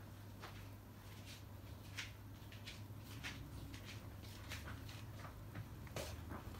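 Faint, irregular scratches and soft taps, a kitten's paws and claws patting and scraping the fabric bedspread as it bats at a small ball, over a steady low hum.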